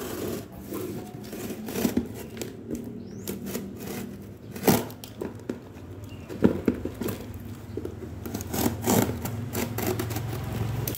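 A small utility knife scraping and slitting packing tape and corrugated cardboard along a box seam, with rustling and crinkling as the cardboard flap is worked open. There are irregular sharp ticks and knocks, the loudest about five and six and a half seconds in, and a low hum in the last few seconds.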